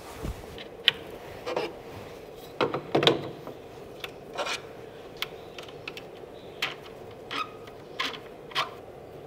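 Hands setting up a workpiece and its clamps on a benchtop CNC mill's bed: a run of irregular clicks, taps and short scrapes, the busiest stretch about three seconds in, over a faint steady hum.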